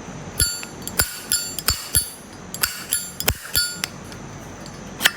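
2003 Zippo lighter's lid being flicked open and snapped shut again and again: a series of about ten sharp metallic clinks with a bright ring, ending with one loud clink after a pause. The lid sits slightly out of line.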